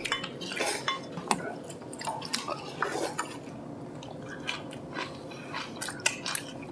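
Eating utensils tapping and clinking against dishes at a meal: irregular, scattered light clicks.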